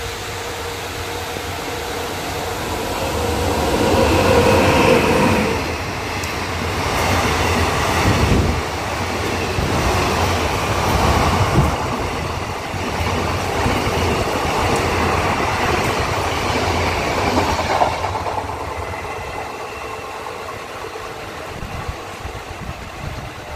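WAP-7 electric locomotive's horn sounding for the first few seconds as an express approaches, then the train passing at speed, its wheels clattering over the rail joints. The rumble eases off near the end as the train draws away.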